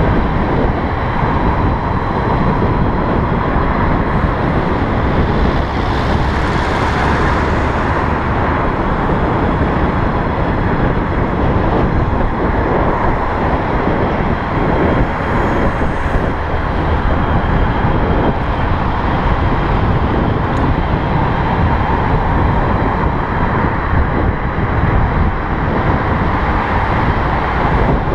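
Steady wind rush on the microphone and road and traffic noise while riding an electric bicycle, with a brief swell of hiss about six seconds in.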